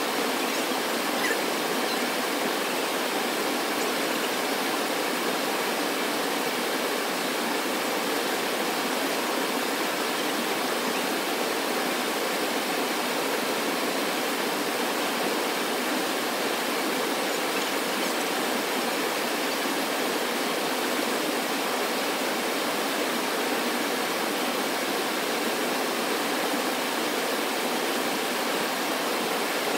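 Steady, unbroken rushing noise with no distinct events, like running water.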